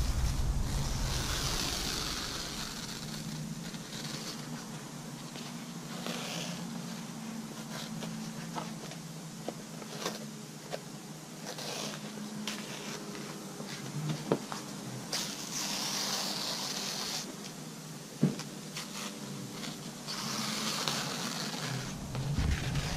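Utility knife slicing through a sheet of headliner foam along the edge of a cardboard sun-visor core: several drawn-out scratchy cuts with small clicks and rustles between them, over a steady low hum.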